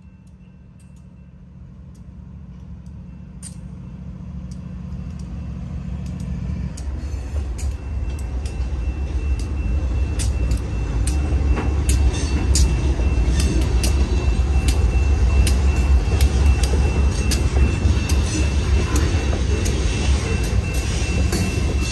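Diesel-hauled freight train passing close by: the locomotives' rumble builds over the first ten seconds, then hopper cars roll past with wheels clicking over the rail joints. A thin steady high squeal comes in about halfway.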